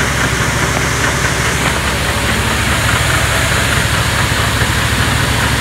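Portable air-powered grain cleaner running steadily: a small generator engine's hum under the even hiss of its fan and of seed pouring out of the outlet chutes.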